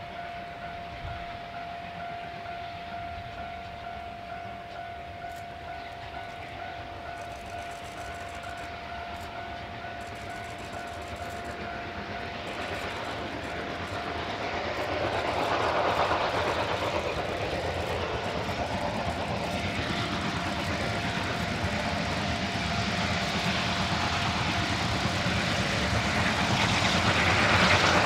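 D51 200 steam locomotive and its train approaching: the exhaust and running noise grow steadily louder, swelling about halfway through and again near the end. A steady high tone sounds through about the first half.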